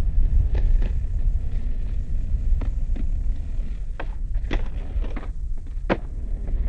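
Skateboard on concrete: a string of sharp wooden clacks as the tail snaps and the board and wheels hit the pavement and ledge, the sharpest near the end. Under it runs a steady low rumble of wind on the microphone.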